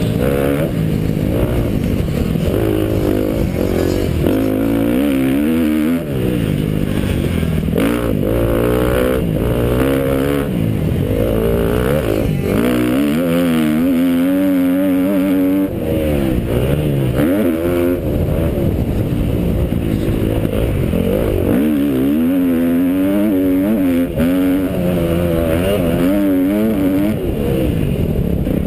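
KTM SX-F four-stroke single-cylinder motocross engine at race pace, its pitch rising and falling again and again as the rider works the throttle and shifts through the gears, with scattered knocks from the bike over the ruts.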